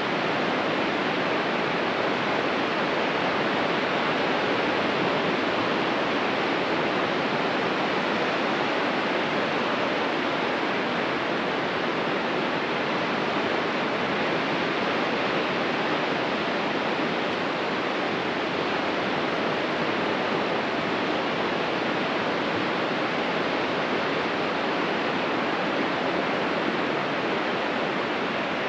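Ocean surf at the beach, a steady, even rush of water noise with no single wave break standing out.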